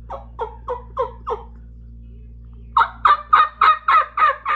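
Turkey yelps on a stacked-frame diaphragm mouth call: a short run of five yelps, then after a pause a louder, quicker series of yelps starting near the end.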